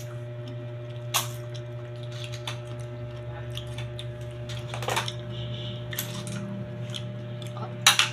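Eating by hand at close range: scattered small clicks and mouth noises as food is picked apart and eaten, the sharpest a quick pair of clicks near the end, over a steady low hum.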